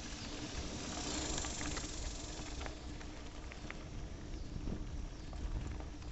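Outdoor noise on a handheld camera's microphone as it moves along a grassy dirt trail: a steady rumble and hiss, a faint low hum, and a few light ticks about two to four seconds in.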